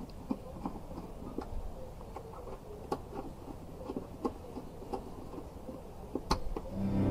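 Scattered light clicks and knocks of a screwdriver and a plastic cover being handled at a spa's control box.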